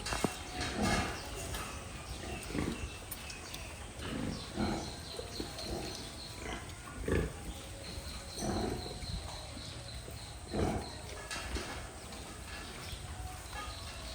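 Pigs grunting: short low grunts at irregular intervals, about one every second or two.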